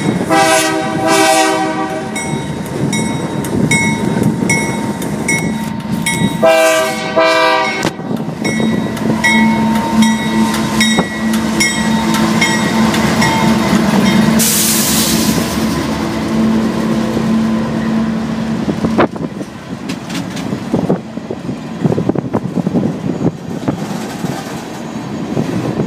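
BNSF coal train passing close by. The lead locomotive sounds its air horn twice: a blast of about two seconds at the start and a shorter one around seven seconds in. Then the diesel-electric locomotives go by with a steady engine drone, and from about nineteen seconds in the loaded coal cars roll past with wheel clatter over the rail joints.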